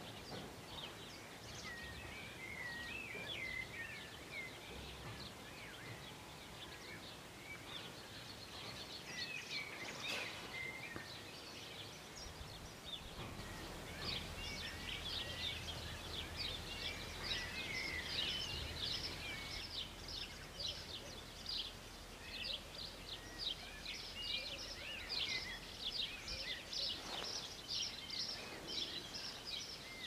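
Small songbirds chirping and singing, with a few wavering warbled phrases at first. From about halfway in comes a dense run of short, high chirps, several a second.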